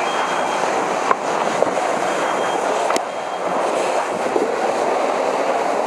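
Steady, loud rushing of a fire hose stream flowing from the nozzle into a burning room, with a few faint short high beeps.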